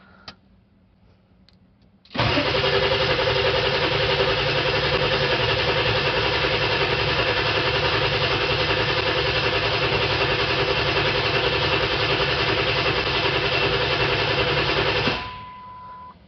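Starter cranking a 1999 Ford 7.3 Power Stroke V8 turbo diesel for about 13 seconds without it catching: the engine is building injection control pressure after a new injector, with oil drained from the injectors. The cranking starts abruptly a couple of seconds in and stops suddenly, followed by a short steady beep.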